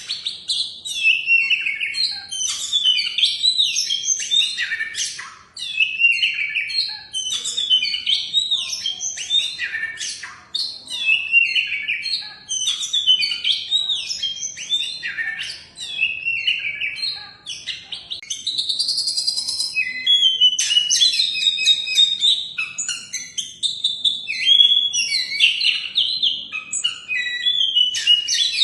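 Oriental magpie-robin (kacer) singing a long, varied song of quick whistles and chirps with many rising and falling sweeps, barely pausing.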